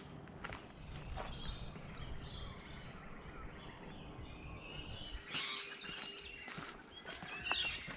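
Birds chirping, with bursts of calls about five and a half and seven and a half seconds in. In the first seconds a few soft footsteps on a path sound over a low rumble.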